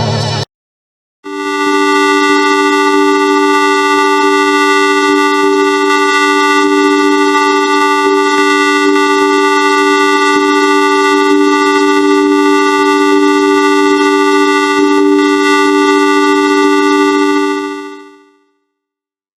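A long held electronic drone: a steady chord of several unchanging, horn-like tones, produced by heavy effects processing of a logo jingle. It comes in about a second in after a brief silence and fades out near the end.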